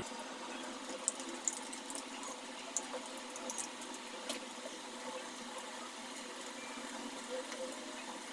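Battered chicken pakoras deep-frying in hot oil in a kadhai: a steady sizzle with scattered small crackles and pops.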